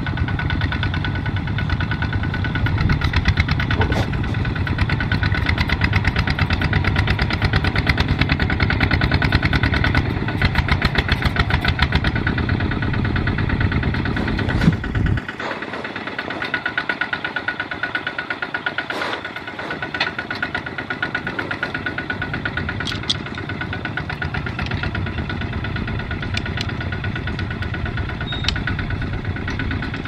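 Single-cylinder diesel engines of Kubota ZT155 two-wheel walking tractors running steadily under load as they haul trailers of rice sacks, with a fast, even chugging beat. About halfway through the deep low end drops away suddenly and one engine carries on, with a few sharp rattles.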